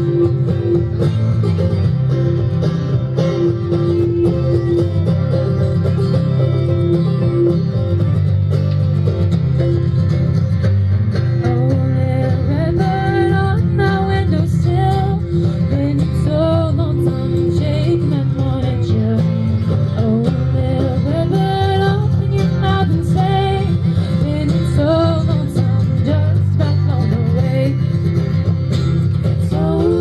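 Acoustic bluegrass band playing live: strummed acoustic guitar, picked banjo, fiddle and upright bass. A melody line weaves over the steady rhythm from about twelve seconds in.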